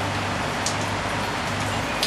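Steady hiss of a rain shower, with a low, even rumble underneath and a single sharp drip-like tick about two-thirds of a second in.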